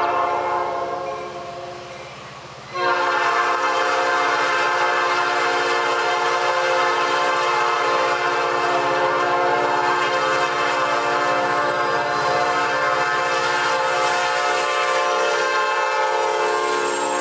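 Norfolk Southern diesel locomotive's air horn sounding: a blast that fades away about two seconds in, then a second long, steady blast from about three seconds in, held as the locomotive passes close by.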